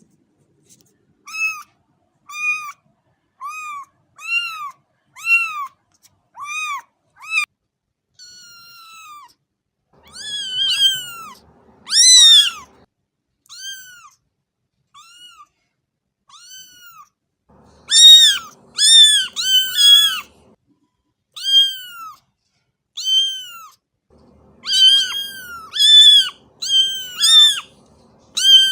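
Young kittens mewing over and over: short, high-pitched calls that rise and fall. They come about one a second at first, then faster and overlapping in the second half, as more than one kitten calls at once.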